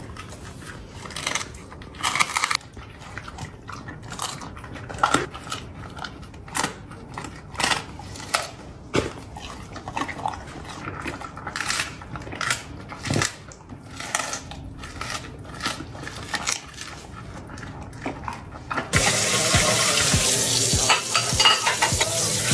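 Dishes and utensils clinking and knocking in a kitchen, irregular sharp clicks about once a second. Near the end a louder steady rushing noise like running water from a tap comes in.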